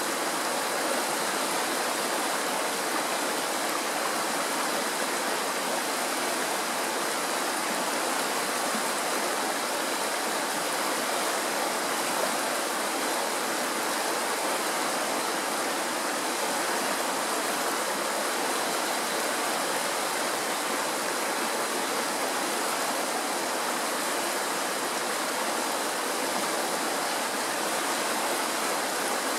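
Mountain stream rushing and splashing over rocks in shallow rapids, a steady, unbroken rush of water.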